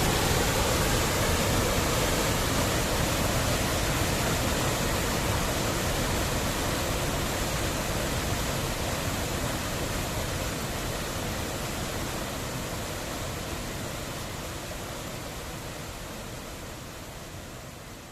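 Waterfall: a steady, even rush of falling water that slowly fades out.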